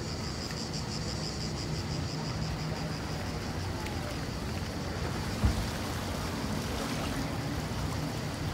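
Open-air seaside ambience: steady wind and water noise. A high pulsing buzz fades out after about three seconds, and there is a single thump about five and a half seconds in.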